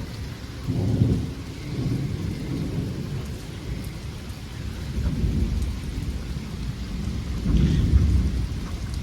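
Thunder rumbling over steady rain, swelling loudest about a second in and again near the end.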